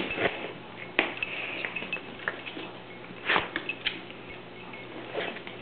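A dog's claws clicking on a hardwood floor as it moves about, with scattered taps and a sharper knock about three seconds in.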